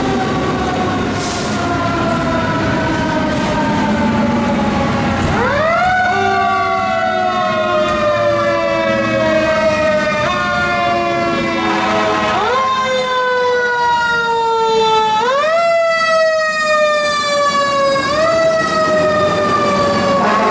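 Fire truck's mechanical siren. It first winds slowly down, then from about five seconds in it is revved again and again, each time a quick rise in pitch followed by a slow fall, roughly every two and a half seconds.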